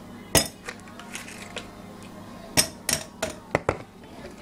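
Hard kitchen items being handled: about half a dozen sharp clinks and knocks at irregular intervals, most of them in the second half, over a faint steady low hum.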